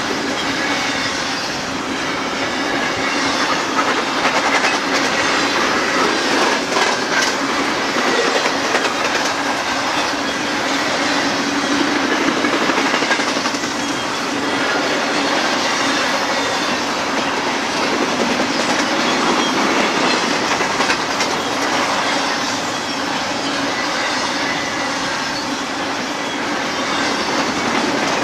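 BNSF double-stack intermodal freight train's well cars rolling past: a steady noise of steel wheels on rail with a running clickety-clack of the trucks.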